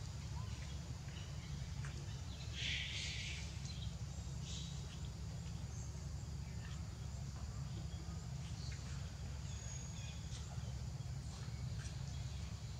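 Outdoor background: a steady low rumble, with a short hiss about two and a half seconds in, and scattered faint clicks and a brief high chirp.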